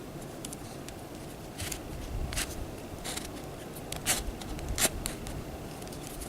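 Handling noise of a plastic toy monster figure being turned over in the hands: scattered light clicks and scrapes, about half a dozen, over a low rumble.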